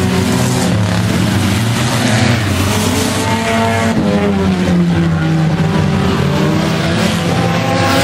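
Several dirt-track race cars running on the oval, engines revving and easing as they race. One car passing close about four seconds in, its engine note climbing and then falling away as it goes by.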